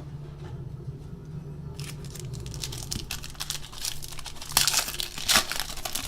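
Plastic trading-card pack wrapper being torn open and crinkled by hand. It starts about two seconds in, and the crackling is loudest near the end.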